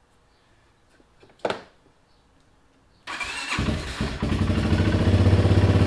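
A short knock about a second and a half in, then a 2017 Kawasaki Brute Force 300 ATV's single-cylinder engine cranks and catches about three seconds in, settling into a steady idle. This is its first start since a Dynojet stage 1 jet kit was fitted to the carburetor.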